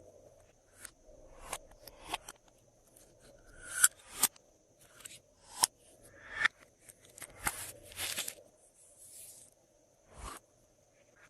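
Glossy slime being mixed and pressed by hand, giving irregular sticky clicks, squelches and small air-pocket pops, a few of them sharper and louder than the rest.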